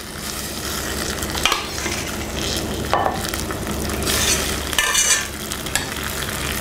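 Metal ladle scooping and pouring sauce into a casserole dish and stirring it through, with several short scrapes and splashes over a steady hiss.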